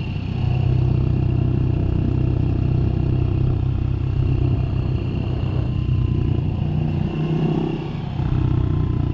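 Small-bore motorcycle engine running steadily, easing off briefly about eight seconds in and then picking up again.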